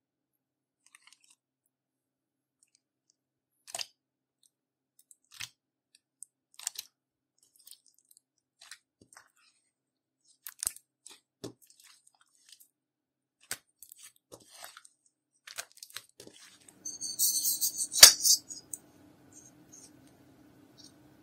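Clear slime with mixed-in eyeshadow being squished and stretched by hand: scattered sticky clicks and small pops, then a dense burst of crackling about three-quarters of the way in, with one sharp loud click in it.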